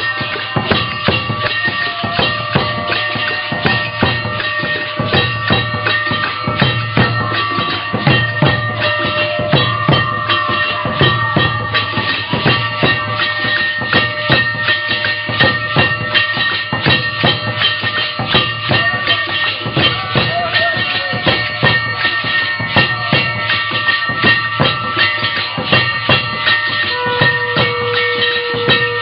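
Loud aarti music built on fast, even drumming with jingling, ringing percussion and steady bell-like tones, with no singing. A held tone sounds near the end.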